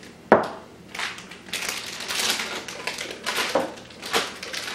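A single sharp knock, then a plastic piping bag crinkling and rustling with a few light taps as icing is worked into it.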